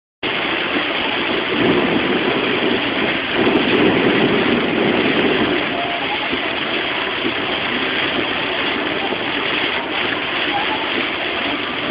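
Heavy rain on a moving car together with tyre and road noise, heard from inside the car as a steady rushing hiss that is louder for a few seconds near the start.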